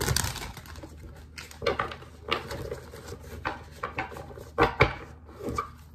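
Tarot deck being shuffled by hand: a string of irregular short card slaps and taps.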